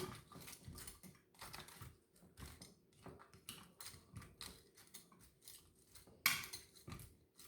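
A utensil stirring and tossing sauce-coated chicken wings in a pan: irregular light clicks and scrapes, with a louder clatter about six seconds in.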